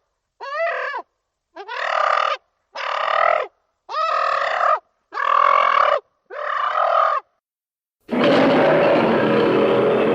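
Invented creature calls for an owl-lion hybrid: six short honking calls, each under a second and about a second apart, followed about eight seconds in by a long, loud, rough noisy cry.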